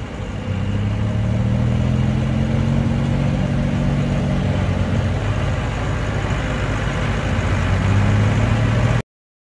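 Mahindra 4550 tractor's diesel engine running steadily as the tractor drives off, getting louder about half a second in. The sound cuts off abruptly near the end.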